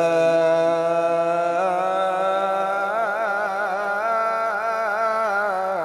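A male qari's voice in melodic Quran recitation (tilawat), drawing out one syllable as a long held note with no break. The note is steady at first, then wavers in ornamental turns from about a second and a half in.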